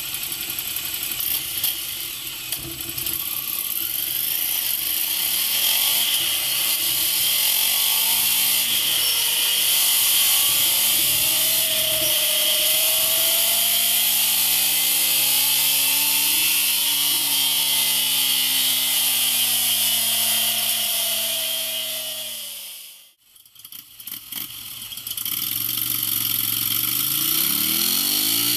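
Ducati Scrambler 800's air-cooled L-twin running on a dyno through the stock exhaust, its engine speed climbing steadily and then falling back. It cuts out about 23 seconds in and returns through a Mivv Double Gun slip-on exhaust, revs rising again near the end.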